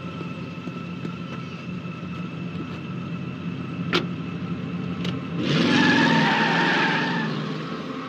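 A car engine runs at idle. A door shuts with a sharp knock about four seconds in. The engine then revs hard and the car speeds away with a squeal of tyres, loud for about two seconds before fading.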